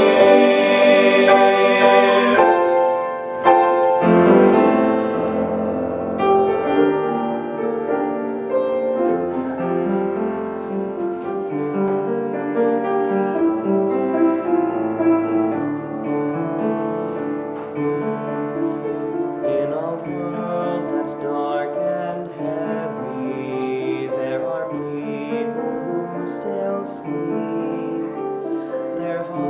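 A mixed choir of young voices singing a hymn, ending a phrase about two seconds in. A piano then plays on alone as an interlude.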